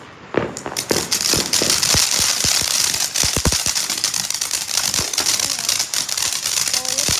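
Ground fountain firework starting up about half a second in, then spraying with a steady hiss and dense crackling, broken by a few heavier pops.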